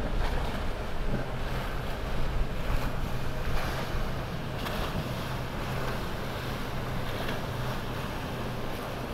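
Twin Mercury Racing 450R supercharged V8 outboards on a Mystic catamaran running with a steady low hum, over water wash and wind buffeting the microphone, gustier in the first few seconds.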